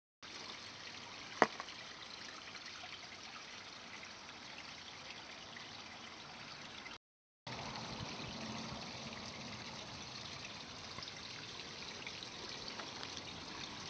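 Steady hiss of outdoor background noise with one sharp click about a second and a half in. It cuts out briefly about seven seconds in, then carries on.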